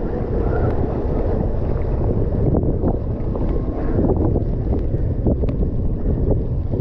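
Mountain bike riding fast over a muddy dirt track: steady wind buffeting on the on-board camera's microphone and tyre rumble, with many small clicks and rattles from the bike.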